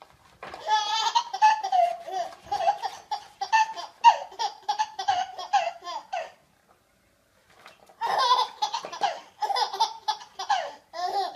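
A baby laughing in quick repeated high-pitched bursts: two bouts of giggling with a pause of a second or two between them.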